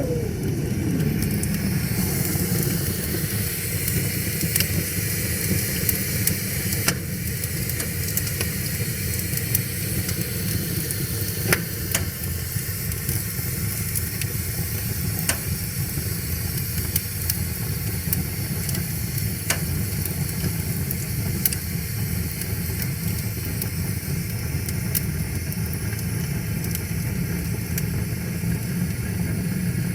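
Wood fire crackling, with scattered sharp pops every few seconds, over the steady rushing of a river.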